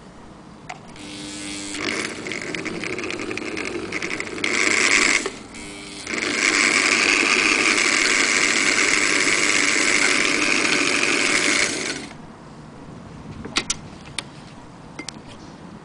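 Singer 201K electric sewing machine running under its motor. It picks up speed over the first few seconds, drops off briefly about five seconds in, then runs fast and steady until it stops about twelve seconds in. A few light clicks follow.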